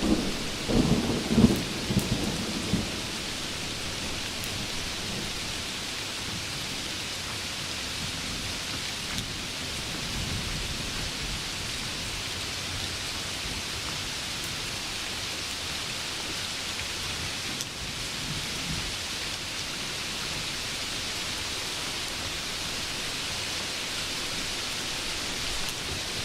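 Thunder: a loud rumbling clap in the first few seconds, then steady heavy rain hissing, with faint distant rumbles of thunder later on.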